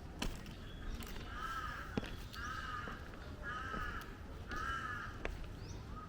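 A crow cawing four times, evenly spaced about a second apart, over faint street noise and scattered light clicks.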